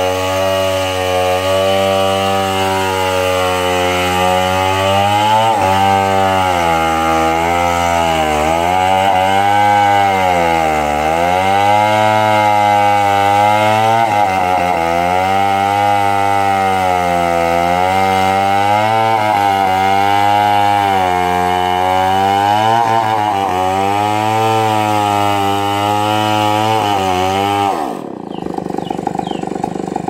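A chainsaw cuts through a log. Its engine pitch sags and recovers again and again as the chain loads in the wood, then it drops away sharply near the end.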